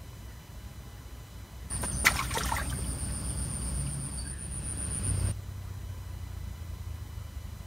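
Fishing tackle being handled at the water's edge: a sharp click about two seconds in, then a few lighter clicks and rustles, over a steady high thin whine that starts and stops suddenly with them about three and a half seconds later, all above a low outdoor rumble.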